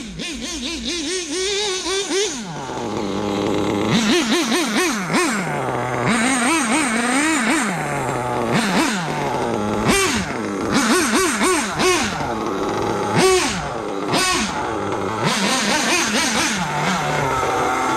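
Dynamite .28 big-block two-stroke nitro glow engine in a Kyosho Landmax RC rally car, revved up and let back down over and over, its pitch climbing and falling every second or so.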